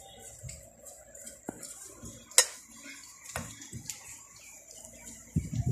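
A spoon stirring a thick spice paste in a ceramic bowl, scraping and knocking against the bowl, with several sharp clinks, the loudest about two and a half seconds in, and a few dull knocks near the end.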